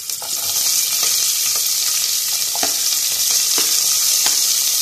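Sliced onions dropping into hot oil in an aluminium pressure cooker and sizzling loudly and steadily, the sizzle swelling during the first second as more onion goes in. A few light knocks are scattered through it.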